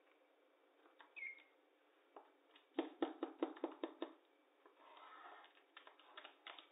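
Fingers tapping quickly on a tabletop, a run of about eight sharp taps in just over a second, with a short chirp from a rainbow lorikeet about a second in. Softer rustling and light clicks follow near the end.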